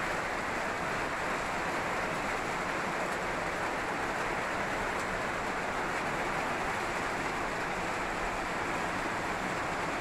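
Steady rain falling, an even hiss that holds without a break.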